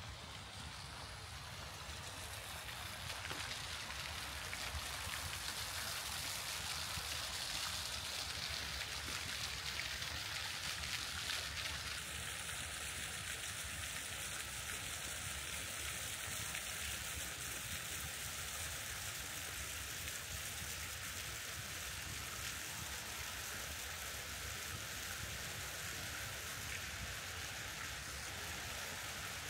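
Water running and splashing down a stepped cascade fountain (a water staircase), a steady even splashing.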